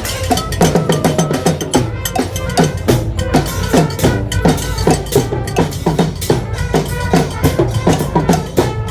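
Brass-and-percussion street band playing: drums keep a steady, fast beat under sustained horn notes.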